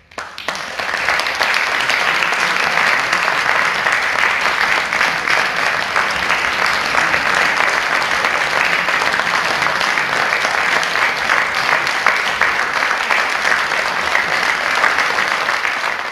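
Audience applause, breaking out just after the music stops and holding steady and dense throughout.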